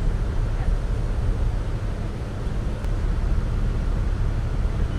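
A tour boat's engine running at steady speed with a low, even hum, over a steady rush of wind and water noise.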